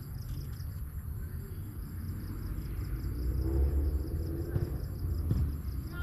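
A steady low rumble that grows louder in the second half.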